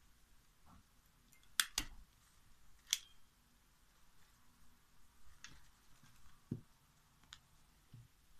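Small handheld stapler snapping shut through folded paper strips: a quick double clack a little over a second and a half in and another sharp clack about a second later, then a few fainter taps.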